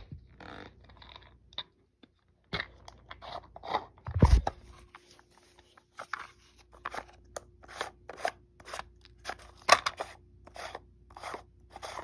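Push-button spincast reel being twisted and handled as its silver front cover is worked off, giving a run of short crisp plastic-and-metal clicks, about two to three a second, with a single heavier thump about four seconds in.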